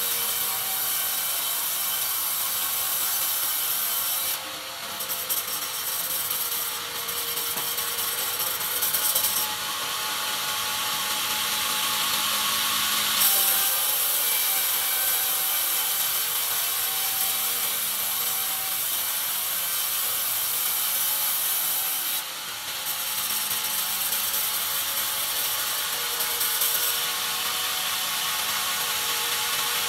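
Sawmill band saw cutting lengthwise through a pine log: a steady, high-pitched sawing noise. It is briefly quieter twice, about four and a half seconds in and about twenty-two seconds in.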